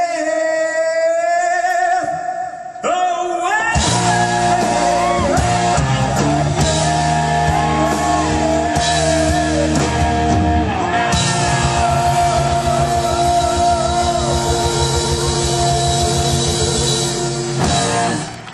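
A male singer holds a long sung note with vibrato. About four seconds in, a live rock band comes in with electric guitar and drums and plays on with the vocals.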